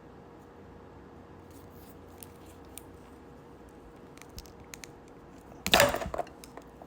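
Small electrical wire being cut and its insulation stripped with a hand wire cutter: a few faint ticks, then a short, loud snip and crunch a little under six seconds in.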